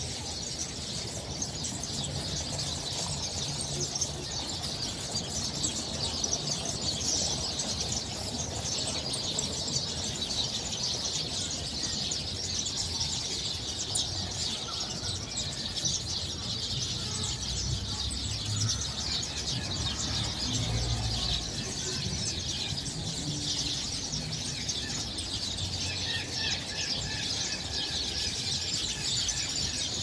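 A dense chorus of many small birds chirping and twittering together in the trees, a constant overlapping high chatter with no pause.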